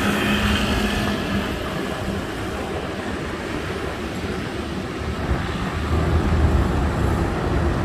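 Road traffic: the steady engine and tyre noise of passing vehicles, with a deeper engine drone growing louder about six seconds in.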